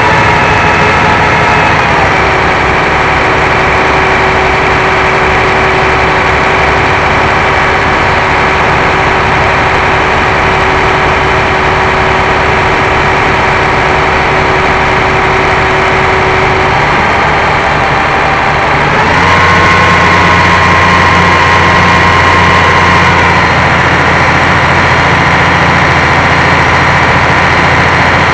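A motor running steadily with a humming, many-toned pitch that steps down about two seconds in and steps up again about nineteen seconds in.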